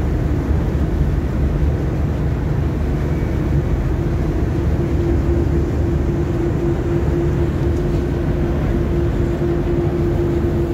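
Steady low rumble of a ship's engines under way, heard on the open stern deck, with a steady hum coming in about four seconds in and holding.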